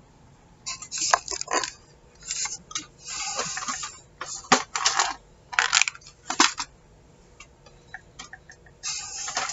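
Clattering of metal binder clips and clothespins in a plastic storage box as it is fetched and set down, in a series of short rattles over the first seven seconds, then a pause and another rattle near the end.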